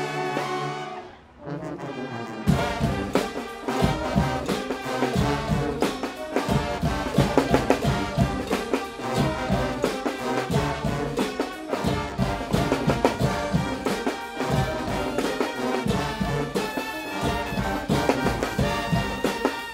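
A Guggenmusik brass band playing loudly: trombones and trumpets over a strong, driving beat. The music drops away briefly about a second in, then the full band comes back in.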